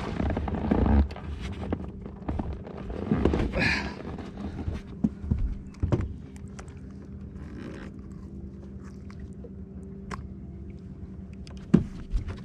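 Scattered knocks, scrapes and clicks of an angler moving and handling a rod on a bass boat's deck, over a faint steady hum. A sharp, loud knock near the end comes with the hookset, as the rod is swept back and bends under a fish.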